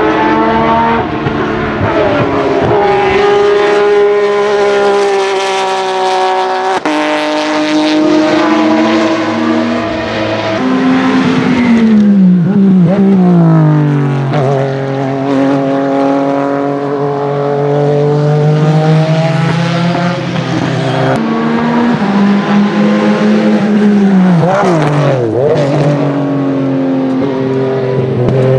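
Porsche 996 GT3 RSR's 3.6-litre flat-six race engine running hard as the car passes. Twice, about a third of the way in and again near the end, the revs fall in steps on downshifts into a corner, then hold steady at a lower pitch.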